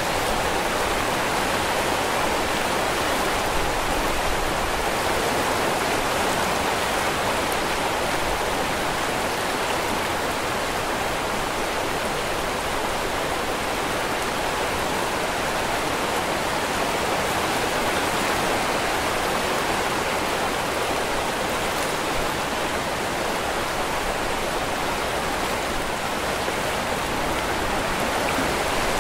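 Waterfall: a steady, unbroken rush of falling water that does not change.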